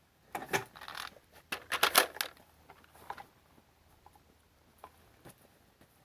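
Handling of a Smith & Wesson M&P 15-22 rifle with a drum magazine: a quick, irregular run of light metallic clicks and rattles, loudest about two seconds in, then a few faint single ticks. No shots are fired.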